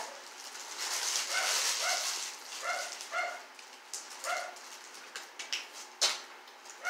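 A small dog off to the side barking in short repeated yaps, roughly one every half second with pauses in between, while paper wrappers crinkle and rustle.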